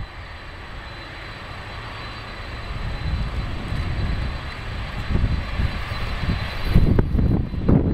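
Jet engines of a Boeing 767 freighter running, a steady noisy rumble with a thin high whine, growing louder over the first few seconds.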